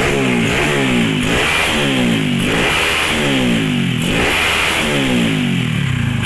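Bored-out Honda C70's single-cylinder four-stroke engine revving, its pitch climbing and falling back again and again. The engine has just been reassembled and is on a test ride.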